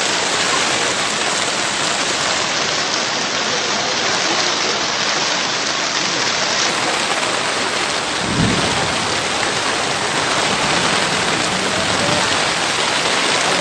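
Heavy rain pouring down in a steady, dense hiss. About eight seconds in, a short low rumble of thunder rises under it.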